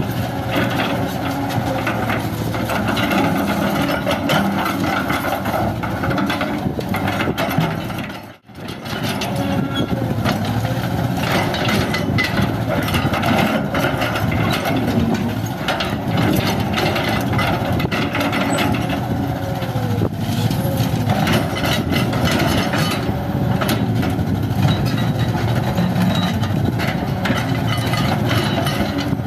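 Kobelco SK200 hydraulic excavator's diesel engine running steadily while the bucket crunches and scrapes through broken concrete rubble, with many short knocks. The sound cuts out briefly about eight seconds in.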